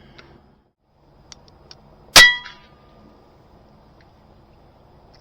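A single shot from a moderated RTI Arms P3 PCP airgun about two seconds in: one sharp crack with a short metallic ring after it. A few faint clicks come just before the shot.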